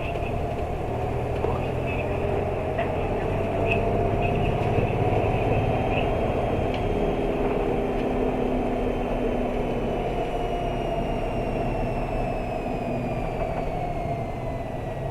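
Cabin sound of an Isuzu Erga city bus with a 6HK1-TCC diesel and five-speed manual gearbox under way, air conditioning running. A low engine drone carries several whining tones that climb in pitch over the first few seconds and then slowly sink. The highest, thin whine is the kind of tone the owner could not hear in person and takes for noise picked up by the recording equipment.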